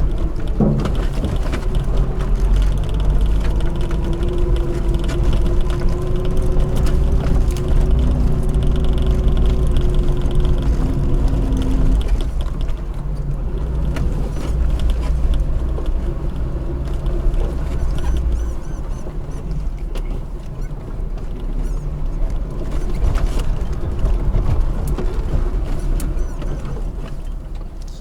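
Lada Niva driving off-road: its engine and drivetrain run with a deep rumble and a wavering whine, with scattered knocks and rattles.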